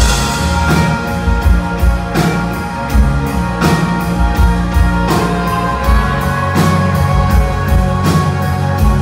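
Live rock band playing: electric guitars and bass guitar over a drum kit. The drums come in just after the start and keep a steady beat.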